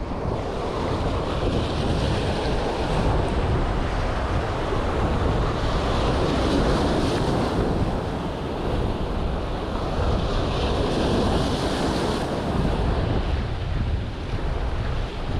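Surf breaking on a sandy beach in strong wind, with gusts buffeting the microphone.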